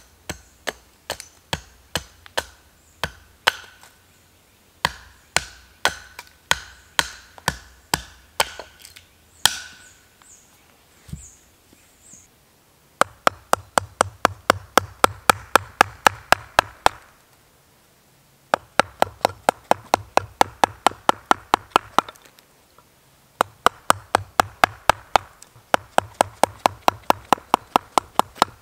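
Small axe hewing a split log on a stump, the blade biting the wood about twice a second with a short ring, stopping about ten seconds in. After a pause, a carving gouge cutting into the split log to hollow it, in three runs of quick sharp strikes about five a second.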